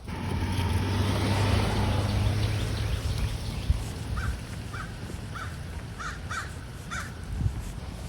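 Breeze gusting, loud with a low rumble at first and easing off after about three seconds. From about halfway, a bird gives a string of about seven short repeated calls over the softer wind.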